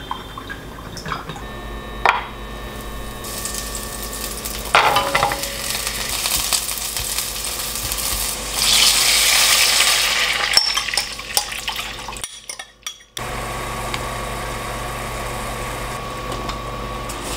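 A spoon stirs and clinks against a glass measuring cup of soy-sauce mixture. Then garlic cloves sizzle in hot oil in a nonstick frying pan, stirred and scraped with a silicone spatula, the sizzle growing loudest about two-thirds of the way through. After a brief break, a soy-based sauce with abalone and mushrooms simmers with a steady bubbling hiss.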